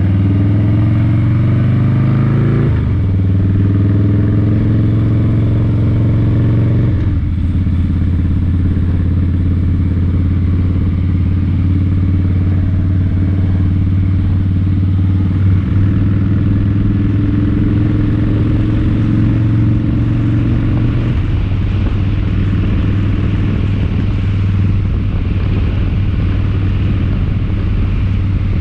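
Motor vehicle engine running under load, rising in pitch at first, then dropping abruptly twice a few seconds apart before holding a steady pitch, with one more small drop later on.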